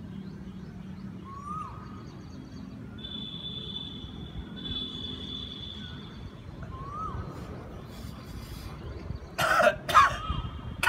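A man coughing and gagging, two or three hard bursts near the end, as a sutra neti thread passed through the nose reaches the back of the throat and is drawn out of the mouth. Before that there are only faint high chirps over a low background.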